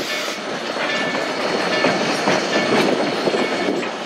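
Narrow-gauge flatcars loaded with logs rolling past, their wheels clicking over the rail joints with irregular knocks and clanks of the cars.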